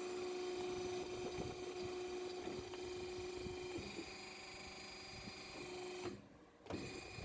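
Band saw machine running with a steady mechanical hum and light rattling. The sound cuts out for about half a second near the end.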